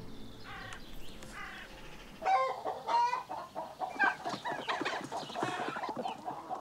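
Farmyard poultry, chickens and turkeys, calling. A few faint calls at first, then from about two seconds in a busy run of loud clucking and calls.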